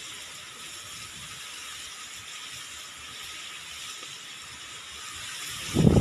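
Steady hiss of wind through sugarcane leaves, with a gust buffeting the microphone near the end.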